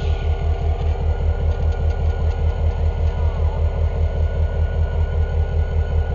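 Diesel locomotive engine idling: a steady low throb that pulses about four times a second.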